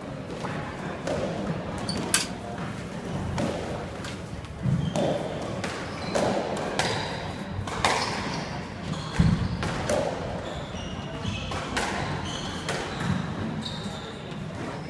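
A squash rally: the ball is struck by rackets and hits the court walls with sharp smacks, about one every one to two seconds, echoing in the hall.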